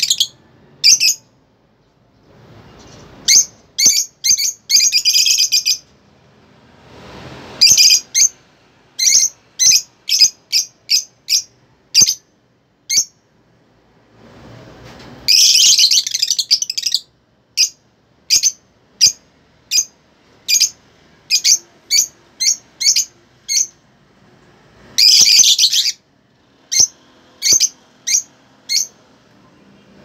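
Caged lovebirds calling: runs of short, sharp, high-pitched chirps, broken by longer bursts of shrill chattering a few seconds in, about halfway and near the end.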